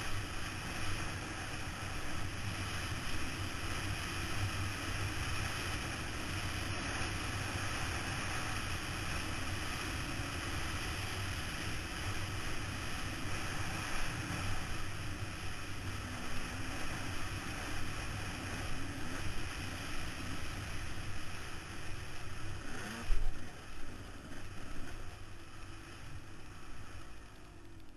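Dirt bike engine running hard while climbing a steep dirt hill, heard through a helmet camera with heavy wind buffeting on the microphone. A single sharp thump late on.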